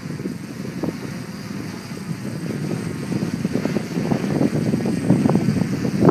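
Wind buffeting the microphone in irregular gusts, building over the last few seconds.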